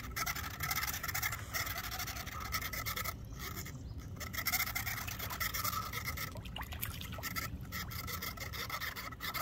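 Fishing reel being cranked steadily as a fish is reeled in: a rasping whir with fast clicks, coming in short runs.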